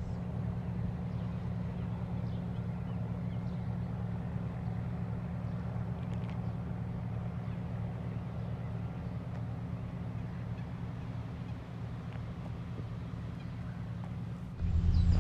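A steady low engine hum at constant speed.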